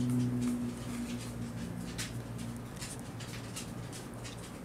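Faint, scattered clicks of a plastic action figure's joints and stand being handled while it is posed, over a low hum that breaks off now and then.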